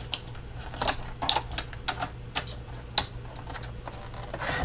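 Scattered sharp clicks and taps of cardstock and hands against a sliding-blade paper trimmer as the sheet is lined up. Near the end comes a short rasp of the blade carriage starting its cut through the cardstock.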